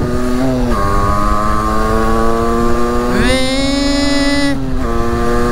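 Derbi Senda X-Treme 50cc two-stroke engine running under way. About three seconds in the throttle opens and the note rises and turns raspier, then drops back shortly before the end.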